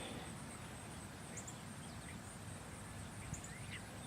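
Quiet pond-side ambience with a low, even rumble and a few faint, short bird chirps, most of them near the end.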